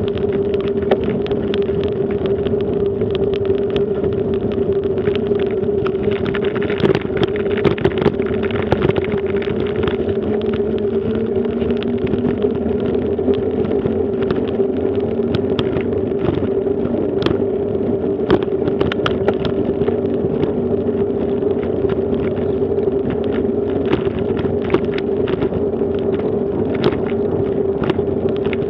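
Bicycle rolling over a brick-paved road: a steady rumble of the tyres with a constant hum, and many small rattles and clicks from the bike.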